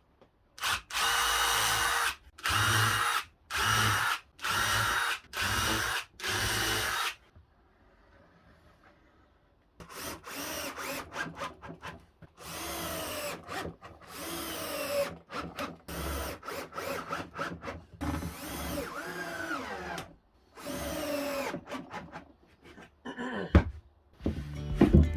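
Cordless drill-driver driving screws into timber in bursts: five steady runs of about a second each, then a string of shorter runs whose pitch slides up and down as the screws bite.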